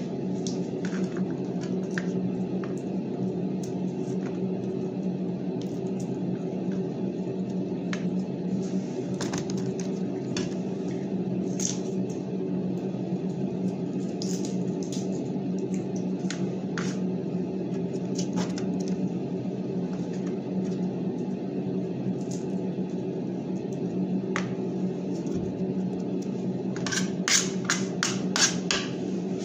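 Garlic cloves being peeled by hand, with scattered faint clicks and crackles over a steady low machine hum. Near the end, a knife chops garlic on a metal tray in a quick run of sharp clicks.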